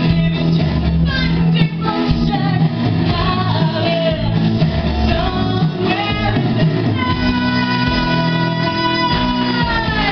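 Live rock music: a singer over guitar and band, loud and steady, with a long held note from about seven seconds in that slides down near the end.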